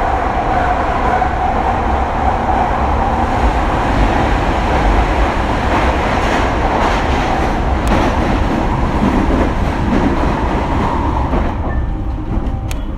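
Running noise inside a JR East E721-1000 series electric train travelling through a long tunnel: a loud, steady rumble with a constant hum in it. It fades somewhat near the end.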